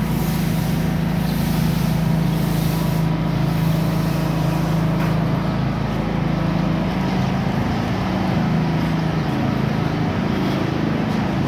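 Steady low mechanical drone, like an engine running nearby, holding an even level throughout.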